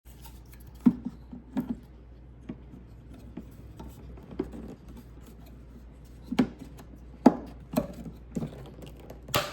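Hands handling and fitting plastic headlight-housing parts and wiring: irregular clicks, knocks and rubbing, about eight sharper knocks in all, over a steady low hum.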